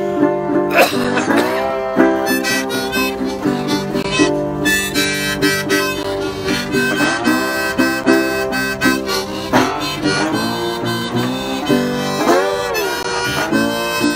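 Harmonica played from a neck rack, with several bent, gliding notes, over a metal-bodied resonator guitar picked and played with a slide.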